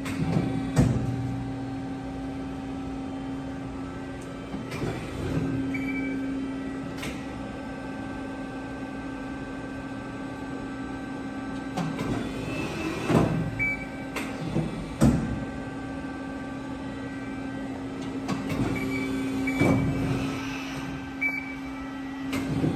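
Amada FBD-8020 CNC press brake running a bending cycle: a steady hum with sharp clunks, one about a second in and several more in the second half.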